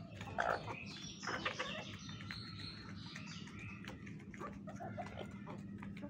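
Chickens clucking while feeding, short scattered calls mixed with small clicks, the loudest call about half a second in.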